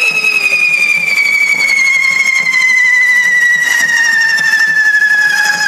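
Carretilles, the hand-held spark-fountain fireworks of a correfoc devil troupe, burning with a loud whistle whose pitch slides slowly down, over the hiss of the sparks. A second, fainter whistle falls in pitch below it.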